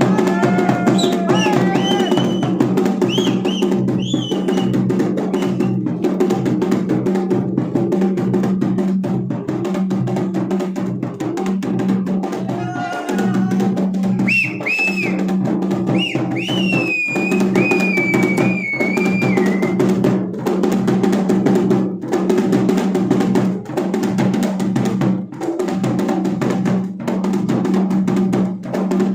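Dhol and damau, the Garhwali folk drum pair, played together in a fast, dense, continuous rhythm, with a strong low drum tone. A few brief high gliding tones sound over the drumming near the start and again about halfway through.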